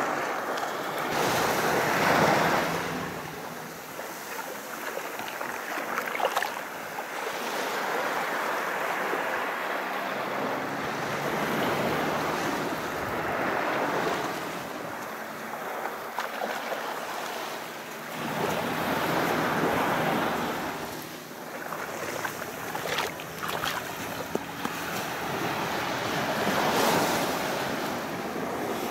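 Sea waves breaking and washing in, the surf swelling and falling away about every six seconds.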